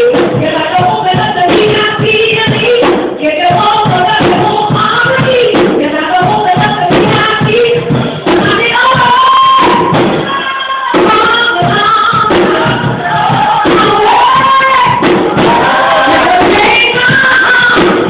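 A woman singing a gospel song into a microphone, her voice sliding widely in pitch, with music behind her.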